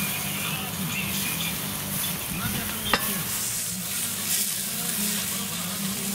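Sausages sizzling in a wire grill basket over hot charcoal, with one sharp click about three seconds in.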